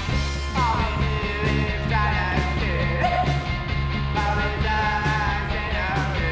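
Garage rock trio playing live: electric guitar, bass guitar and a drum kit, with the guitarist singing into the microphone.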